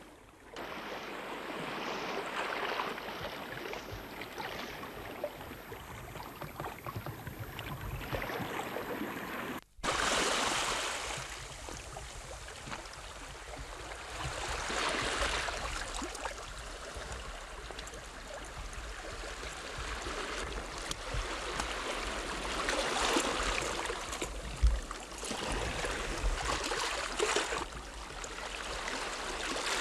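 Sea washing along the shore, a steady rushing that swells and eases in surges, broken off briefly about ten seconds in.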